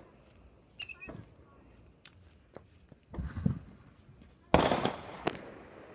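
Fireworks going off: a few faint pops, a muffled boom about three seconds in, then a loud sudden bang about four and a half seconds in that trails away, and another bang at the very end.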